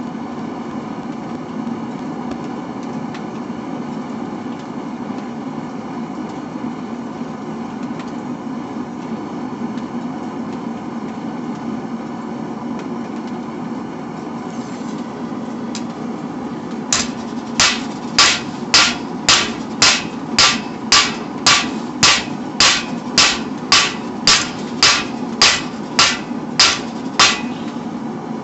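A forge running with a steady low drone; about two-thirds of the way in, a hammer starts striking steel on an anvil in an even rhythm of about two blows a second, which carries on to the end.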